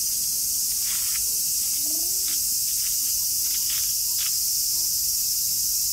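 Cicadas droning in the park trees: a loud, steady, high-pitched shrill that never lets up, with a few faint taps and distant voices well beneath it.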